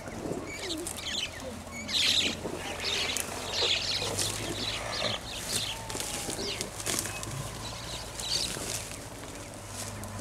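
Birds calling in grassland: many short, irregular chirps and chatters, over a faint steady low hum.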